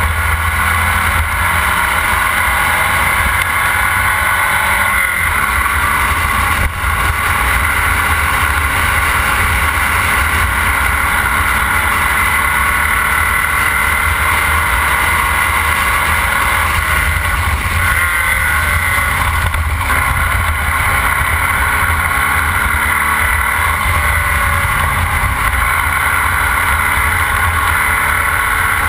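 Formula Vee race car's air-cooled Volkswagen flat-four engine running hard at racing speed, heard from on board. Its pitch rises and falls with throttle and gear changes.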